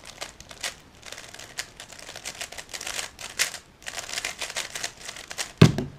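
A 3x3 speedcube being turned at high speed: a fast, dense clatter of plastic layers clicking, with a brief pause about four seconds in. A single louder thump near the end.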